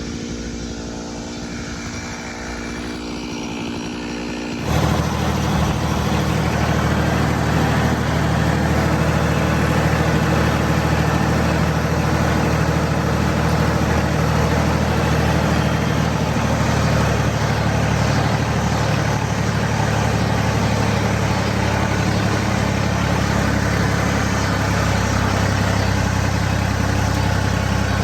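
An engine running steadily, its sound jumping abruptly louder about five seconds in and then holding steady.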